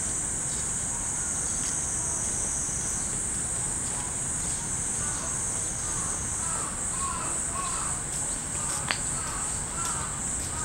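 Cicadas singing steadily in a high band, with the light scattered tinkling of many small bell-shaped metal furin wind chimes stirring on their wires, and one sharper clink about nine seconds in.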